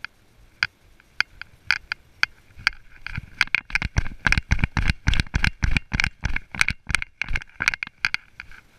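A horse's hooves striking a trail covered in dry leaves, with crunching and rattling at each step. Sparse at first, the footfalls turn into a quick, steady run of strikes with heavy thumps from about three seconds in, as the horse picks up its pace.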